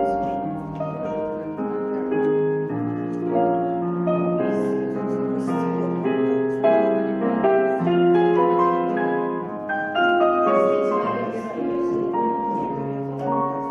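Piano playing ballet-class accompaniment, a melody over chords with notes changing every half second or so.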